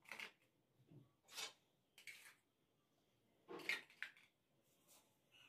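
A few brief, faint handling noises as small steel bowls of ingredients are moved about on a counter, between stretches of near silence.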